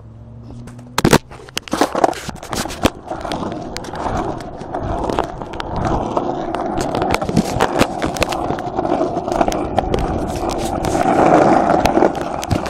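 Handling noise from a phone being picked up off the ground and held: a sharp knock about a second in, then many clicks and a continuous rubbing of fingers over the microphone, louder near the end.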